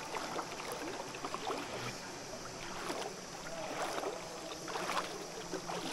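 Water splashing and lapping as a swimmer strokes through calm water, with a soft swish about once a second.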